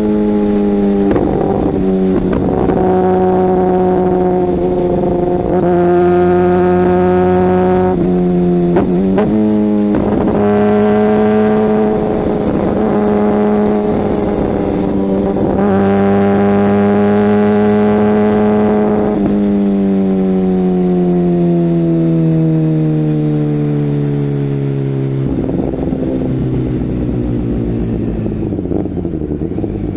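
Kawasaki ZX-10R inline-four engine through a Mivv aftermarket exhaust, running under way: it holds a steady pitch with several quick breaks like gear changes, then the pitch falls steadily as the bike slows and settles lower near the end.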